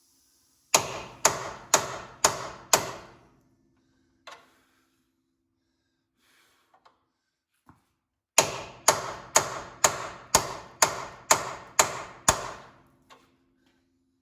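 Hammer blows on the steel of a car frame, each ringing briefly. Five strikes come at about two a second, then a single lighter hit, then a longer run of nine strikes at the same pace.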